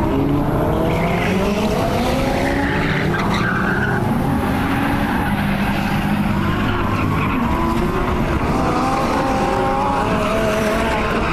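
Nissan Juke R's GT-R twin-turbo V6 revving hard, its pitch climbing and dropping again and again as the car is driven through the gears, with tyre squeal from the car sliding.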